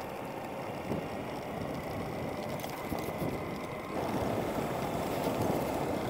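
Steady vehicle running and road noise while moving along a street in traffic, a little louder about four seconds in.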